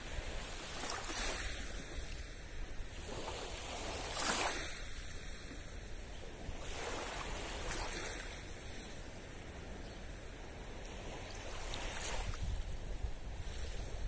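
Small waves lapping and washing in at the edge of a calm sea, in soft swells of surf noise every few seconds, the loudest about four seconds in. A low wind rumble on the microphone runs underneath.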